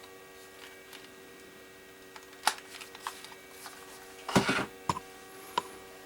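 A 3D printer running with a steady electrical hum, broken by a few sharp clicks and knocks, the loudest a short clatter about four seconds in.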